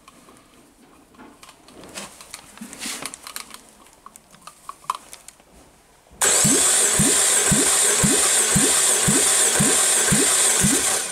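Faint clicks and handling at first. About six seconds in, the starter begins cranking the Citroën/Peugeot EW7A 1.8 16V four-cylinder petrol engine without it firing, with a steady pulse about two and a half times a second. This is a compression test on the first cylinder, which builds up to about 13 kg/cm² on the gauge.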